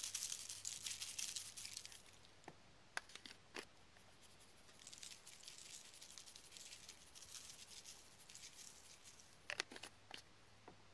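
Seasoning shaken from a spice shaker onto a raw whole chicken on a paper plate: a faint, fast rattle of granules pattering down in two spells, the first about two seconds long and a second from about five to eight seconds in, with a few sharp clicks in between and near the end.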